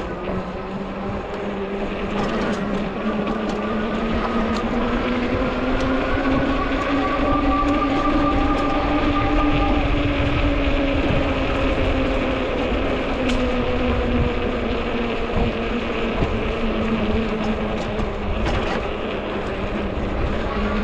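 Fat-tire e-bike being ridden: a steady pitched hum rises over the first several seconds, then eases back down as the bike speeds up and slows. Wind and road rushing sit beneath it.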